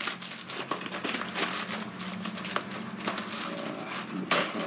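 Cardboard carton of frozen vegetables being handled and opened, a dense run of crinkling and crackling.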